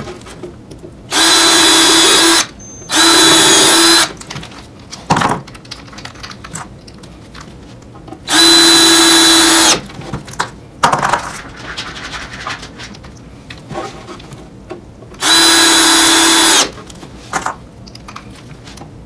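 Cordless drill running in four short bursts of just over a second each, steady in pitch, as it works into rough-lumber boards of a box; light knocks and handling clicks of wood and tool come between the bursts.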